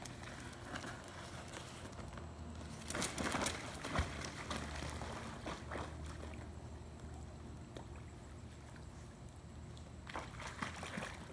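Pool water splashing and sloshing as a dog wades in and swims, with a louder burst of splashing about three seconds in.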